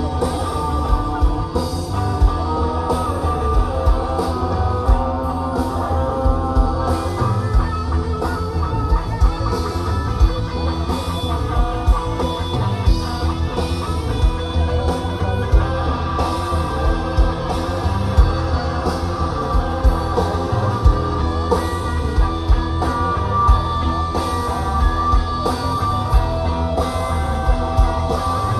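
Live psychedelic rock band playing loud, dense music: two electric guitars over bass guitar and a drum kit.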